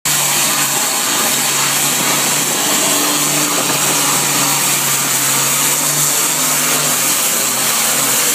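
Pressure washer running steadily: a constant motor hum under a loud, even hiss of the spray.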